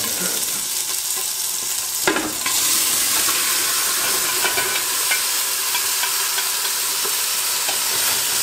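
Pieces of seasoned chicken and sheep neck sizzling as they brown in hot olive oil in a tall stainless-steel stockpot. A sharp knock near the start and another about two seconds in, after which the sizzle gets louder as the meat goes in; then stirring with a wooden spoon.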